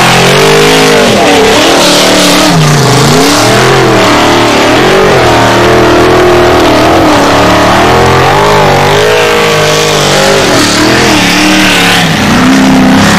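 Formula Offroad car's engine revving hard and unevenly as it climbs a steep dirt slope, its pitch repeatedly rising and falling as the throttle is worked; loud.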